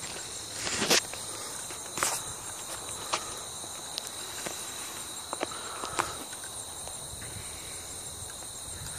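Steady high-pitched drone of insects in a grassy field, with scattered knocks and rustles from the phone being handled and moved, the loudest about a second in.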